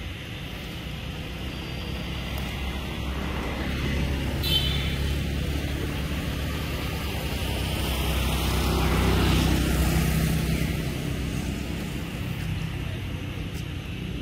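Low engine rumble of a passing motor, swelling to its loudest about nine seconds in and then fading away.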